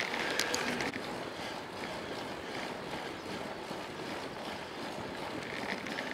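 Steady rush of wind on the microphone of a camera riding on a moving bicycle, mixed with rolling noise from the tyres on an asphalt path.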